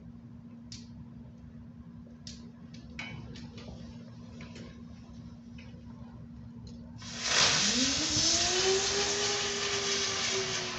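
A few faint clicks, then about seven seconds in a small spinner firework ignites: a loud hiss with a whistling whine that rises quickly and then holds steady as it spins up.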